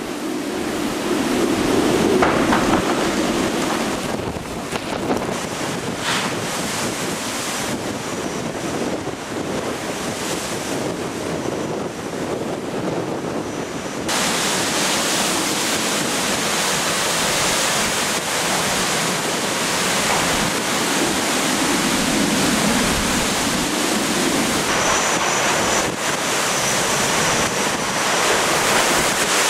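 Typhoon-force wind and storm-surge waves surging and splashing across a waterfront pier, with wind buffeting the microphone. About halfway through the sound changes abruptly to a harsher, hissier wash.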